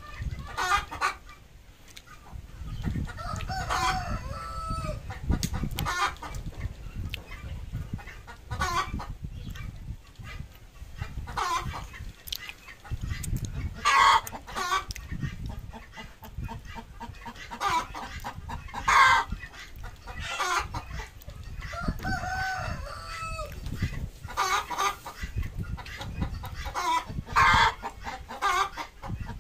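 Domestic chickens clucking and calling in short bursts every second or two, some calls bending in pitch, over an uneven low rumble.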